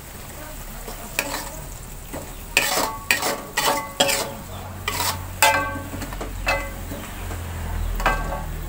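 Metal spatula stirring and scraping around a wok, about a dozen clanks with a brief metallic ring, quickest in the middle, over the steady sizzle of chicken frying in spice paste.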